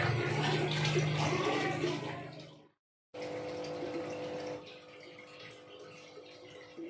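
Air bubbling up from air stones in goldfish aquariums: a steady watery rush with a low hum under it. It fades out about two and a half seconds in and breaks off briefly. It then comes back quieter with a steady hum, dropping again about halfway through.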